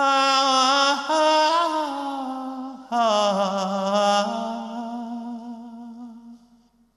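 A solo male voice singing a cappella in two long held phrases, the second fading away near the end.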